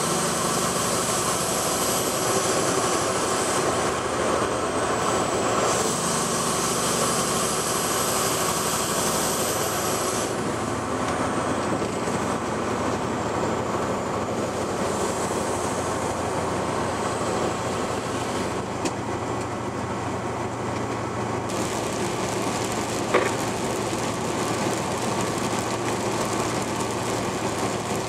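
Steady drone of a semi-truck's engine with tyre and road noise heard from inside the cab, echoing in a highway tunnel at first and opening out onto the road about ten seconds in. One sharp click sounds near the end.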